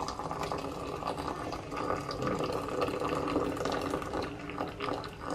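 Water poured in a thin stream into a glass teacup holding a tea bag, splashing steadily as the cup fills.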